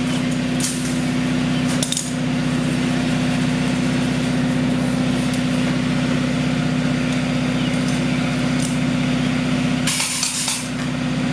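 Steady engine-like machine drone, with a few light clicks and a short burst of hiss about ten seconds in.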